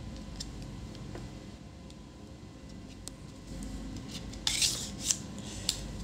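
The black cover of an M.2 SSD USB enclosure being slid on and pressed into place over the drive: a few faint ticks, then, from about four and a half seconds in, a run of scraping rubs and sharp clicks.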